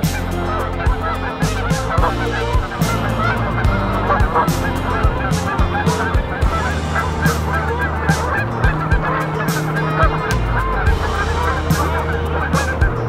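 A flock of geese honking continuously, many short calls overlapping one another, over a low steady hum that shifts in pitch every second or two, with regular short thumps.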